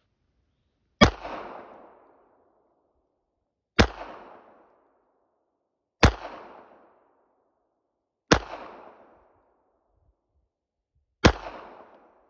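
Five shots from a Davis Industries P32 .32 ACP pocket pistol, fired slowly about two to three seconds apart, each a sharp crack followed by a short echo.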